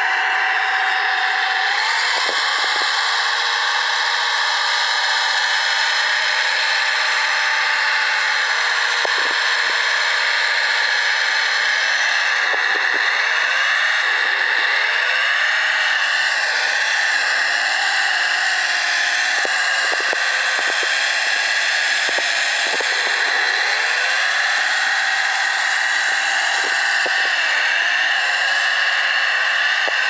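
Radio-controlled model Caterpillar 973D track loader driving, a steady whine from its motors and gearing. The pitch rises and falls over and over as it speeds up and slows, with a few scattered clicks.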